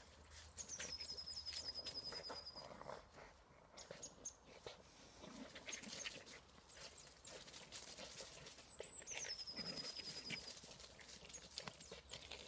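Two Boston terriers growling at each other as they play tug-of-war. A songbird's high trill, stepping down in pitch and then holding, sounds twice, near the start and again about two-thirds of the way through.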